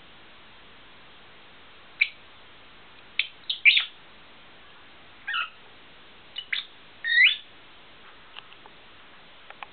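Fischer's lovebird giving short, sharp chirps in irregular bursts, some bending in pitch, the loudest around the middle and a little later. A few faint ticks follow near the end.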